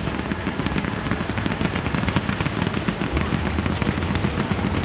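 Fireworks display: a dense, continuous run of small cracks and pops as rows of low-fired shells burst into small stars.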